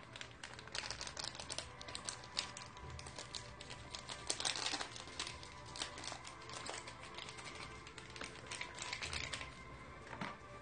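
Plastic condiment packets and wrappers crinkling and crackling as they are handled and torn open, a dense run of small quick clicks and rustles, loudest about four and a half seconds in.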